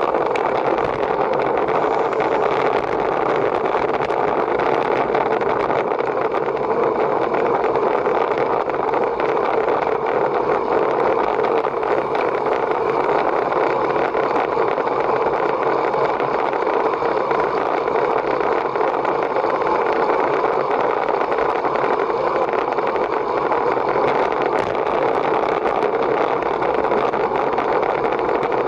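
Steady rush of wind noise with road noise beneath, unchanging throughout, as heard at speed on a moving bicycle.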